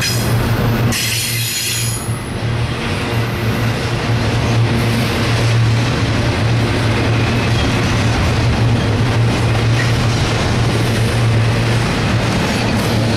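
Double-stack intermodal well cars of a CSX freight train rolling past: loud, steady rumble and clatter of steel wheels on the rails. A brief high-pitched wheel squeal comes about a second in.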